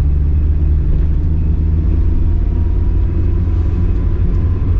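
Hillman Imp's small rear-mounted all-aluminium four-cylinder engine running steadily as the car drives along, heard from inside the cabin with low road rumble.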